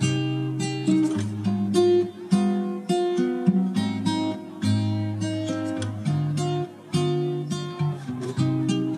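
Background music: acoustic guitar picking and strumming chords.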